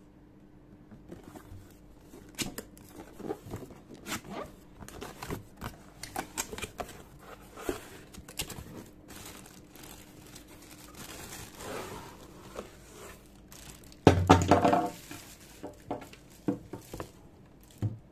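Plastic packaging bags crinkling and a cardboard box rustling as parts are unpacked by hand, in short scattered rustles and clicks. About three-quarters of the way through comes one loud tearing burst about a second long, a plastic bag being ripped open.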